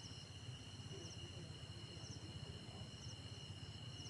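Faint cricket chirping: a short triple chirp about once a second over a steady high-pitched tone and a low hum.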